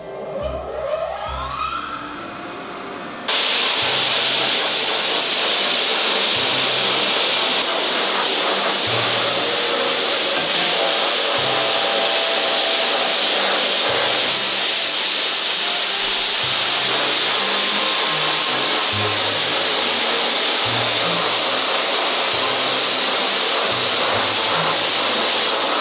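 Rotary sandblasting machine blasting abrasive grit onto stainless steel frying pan bodies: a loud, steady hiss that cuts in suddenly about three seconds in, after a brief rising whine. Background music with low bass notes runs underneath.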